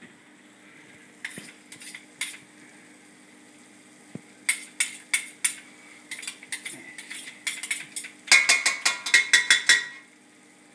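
A kitchen utensil scraping and clinking against cookware in short quick strokes, scattered at first, then a fast, louder run of scrapes near the end that stops abruptly: a pan or bowl being scraped clean.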